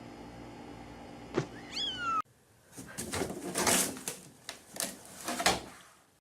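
A cat gives a short meow that falls in pitch, just after a click. After an abrupt cut, a run of harsh, breathy sounds follows, several over about three seconds.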